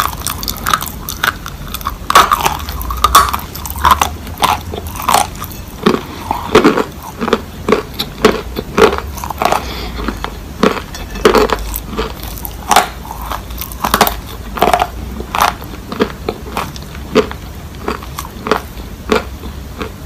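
Chunks of dry Turkistan white clay being bitten and chewed close to the microphone: loud, sharp, irregular crunches, about two a second.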